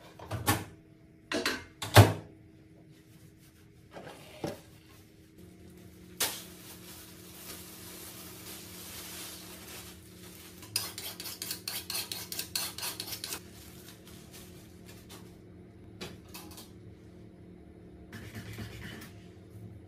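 Kitchen handling sounds: dishes, pans and utensils knocked and set down, with a few sharp clatters in the first couple of seconds. These are followed by a stretch of steady rushing noise and then a run of quick rattling clicks, over a faint steady hum.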